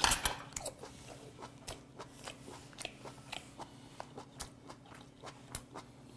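A person biting into a large piece of sea hare meat and chewing it, close to a clip-on microphone: one loud bite at the start, then an even run of chewing clicks about three a second.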